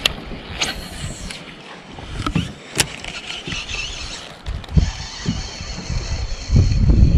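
Handling noise from a baitcasting reel being cranked, with a few sharp clicks, over gusty wind rumble on the microphone. A faint steady high whine comes in about two-thirds of the way through.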